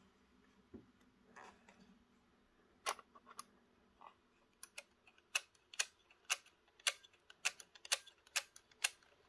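Sharp little plastic clicks from a model railway coach being handled in the fingers. A few scattered clicks come first, then a regular run of about two clicks a second through the second half.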